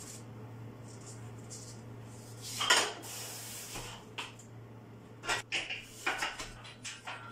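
Metal clinks and rattles from a loaded barbell during box front squats at 112.5 kg. The loudest knock comes about two and a half seconds in, as the lifter drives up off the box, and a run of shorter clinks follows near the end as he lowers again.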